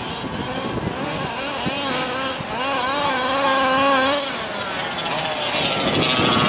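Small two-stroke gas engine of a 1/5-scale RC buggy running, its pitch rising and falling with the throttle, loudest in the middle.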